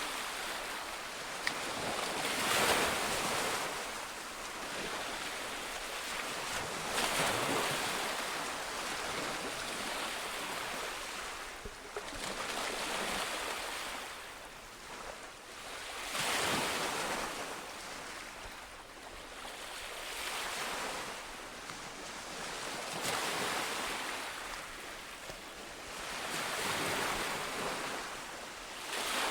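Ocean waves breaking on a shore, the surf swelling and washing back in a slow rhythm, a wave about every four to five seconds.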